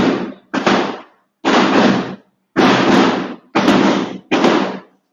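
Firecrackers going off: six loud bangs in about five seconds, each starting sharply and trailing off in a long echo.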